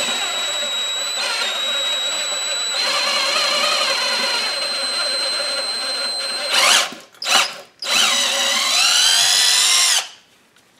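Electric drill with a 25/64 in bit boring dry into the soft cast aluminium of an intake manifold, enlarging a stripped threaded hole to take a Heli-Coil insert. The motor whines steadily, then gives a few short stop-start pulses about two-thirds of the way in. It runs again with its pitch dipping and rising under load, and stops abruptly near the end.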